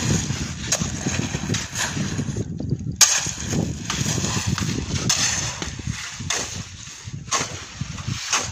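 Wind buffeting an outdoor microphone: an uneven, gusting rumble with hiss, and a sharp click about three seconds in.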